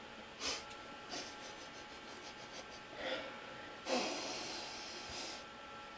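Quiet desk with a few faint soft handling noises and a long breathy exhale about four seconds in, over a faint steady high tone.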